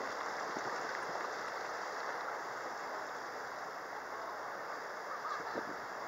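Small river sightseeing boat under way: a steady, even rush of water and boat noise.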